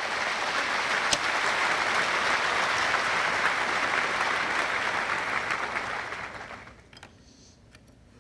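Audience applauding, swelling in at once, holding steady for about six seconds and dying away about seven seconds in. A few faint clicks follow near the end.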